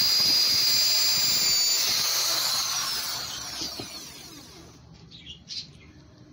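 Electric drill boring into a wooden pallet board, running at a steady high whine for about two seconds, then released and winding down, its pitch falling as it fades.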